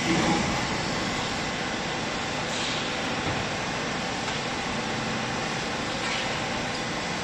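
Hydraulic baling press running: a steady mechanical hum and hiss of its motor and pump, with a brief louder moment right at the start.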